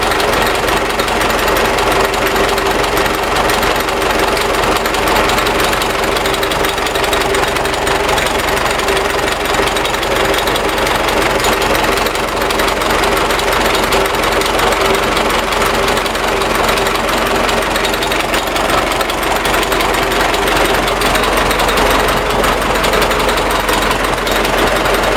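MTZ (Belarus) tractor's diesel engine running steadily with a rapid knock in the engine.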